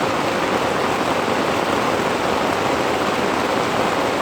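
Torrential rain falling in a heavy downpour, a steady, unbroken hiss that is very loud.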